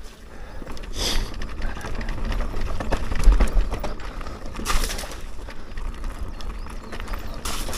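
Mountain bike riding down a dirt forest trail: a steady low rumble of wind on the microphone and tyres on the ground, heaviest about three seconds in, with three brief bursts of hiss at about one second, about five seconds and near the end.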